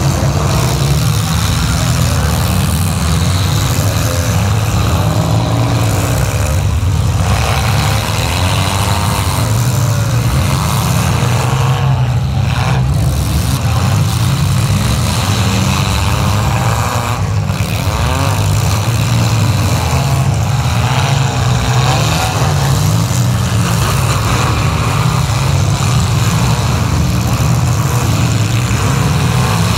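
Several demolition-derby compact cars' engines running and revving together, loud and continuous, their pitch rising and falling as the drivers rev.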